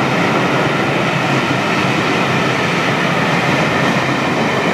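Passenger coaches of a charter train passing close by: a steady, loud rush and rumble of wheels on the rails.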